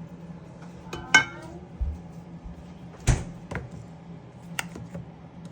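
A few sharp clinks of cutlery against a plate while eating, spaced irregularly, the first with a brief ring. A steady low hum sits underneath.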